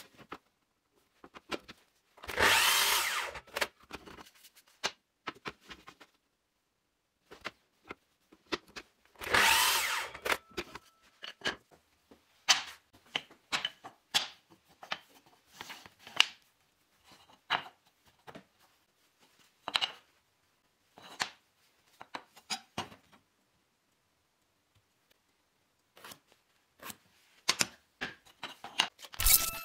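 Mitre saw making two brief cuts through a thin wooden strip, each about a second long and some seven seconds apart. Then come scattered light knocks and taps of small wooden blocks and tools being set down and handled, and a short sharp noise near the end.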